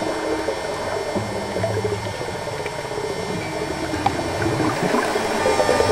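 Underwater ambience picked up through a camera housing: a steady wash of water noise with scattered small clicks and gurgles.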